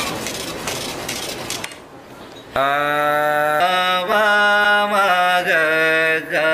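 A man's voice holding a long, loud chant-like note that starts about two and a half seconds in and steps between a few held pitches. Before it comes a short stretch of noisy haze.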